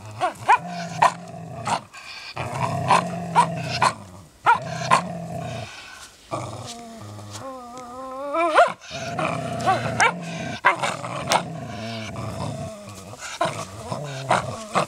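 Dogs growling in repeated low rumbles as they tug and tear at a plush toy crocodile, with sharp clicks scattered throughout and a brief wavering pitched cry about eight seconds in.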